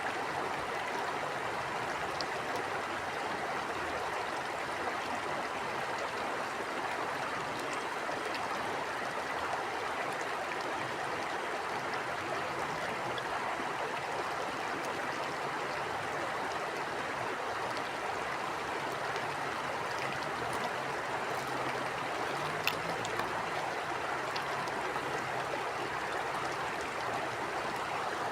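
Stream water flowing over stones, a steady rushing babble with small splashes.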